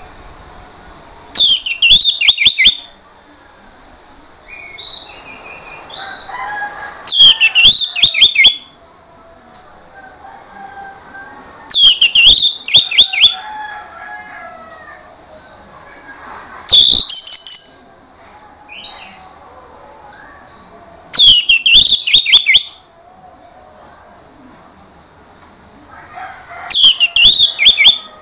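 Orange-headed thrush giving harsh, rasping calls: six loud bursts of quick, sharp notes, each lasting about a second, about every five seconds. Fainter chirps of other birds run underneath.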